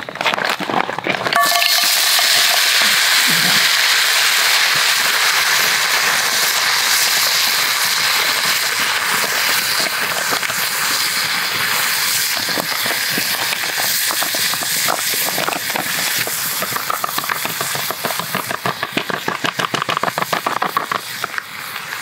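Mussels sizzling in a hot black iron frying pan over a wood fire: a loud, dense hiss full of crackles that starts suddenly a second or so in, as the food goes into the pan, and thins a little near the end.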